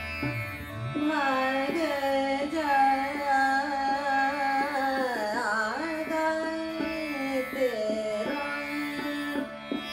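A woman singing long, ornamented held notes without clear words, entering about a second in, over the steady drone of a tanpura being plucked, with light percussion strokes keeping time.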